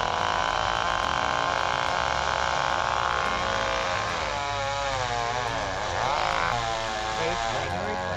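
Chainsaw running at high speed, steady at first, then its pitch wavering up and down repeatedly from about four seconds in.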